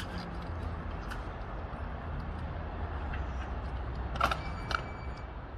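Low steady outdoor rumble, with a sharp click at the start and two sharper knocks a little after four seconds in, half a second apart.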